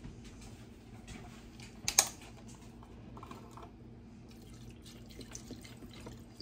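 Quiet kitchen handling with faint small ticks and one sharp click about two seconds in, as a carton of chicken broth is brought to the pot. Near the end the broth starts pouring into a stainless steel pot of vegetables.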